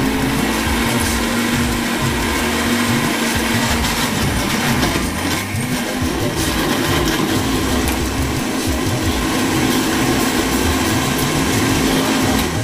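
Countertop blender running continuously, puréeing raw peppers, tomatoes and onions into a smooth red stew base. Its motor note rises slightly about five seconds in, and the blender cuts off suddenly at the end.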